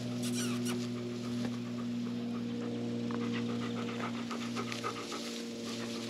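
A large dog panting rapidly close up, in quick rhythmic breaths, over steady held tones.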